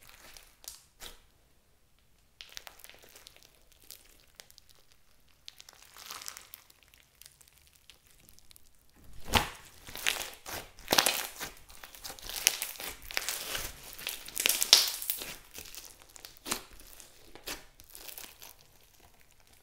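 Hands kneading and squeezing clear slime packed with foam beads and floam, giving many small sticky clicks and pops. It is sparse and quiet at first, turns dense and loud about halfway through while the slime is pressed flat, then thins out again.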